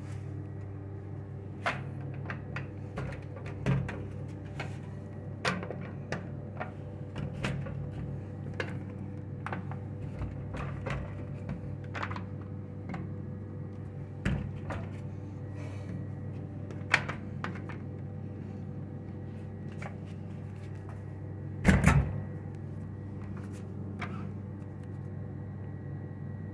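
Steady low hum of a small restroom with a faint steady high tone, over which come scattered light clicks and knocks, the loudest a quick double knock a little under 22 s in.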